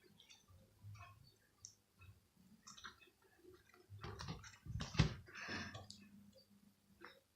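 Slime being handled: scattered small sticky clicks and crackles, thickening into a denser run of clicks about four to six seconds in, with one sharper pop about five seconds in.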